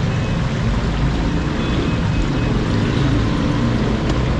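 Steady low rumble of street traffic, with an even hiss above it.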